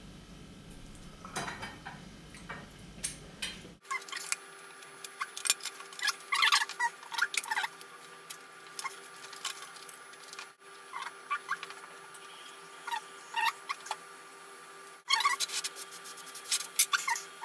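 Light clicks, taps and short squeaks of hands handling MacBook Pro display parts, coming in irregular clusters. The low background hum drops out abruptly about four seconds in.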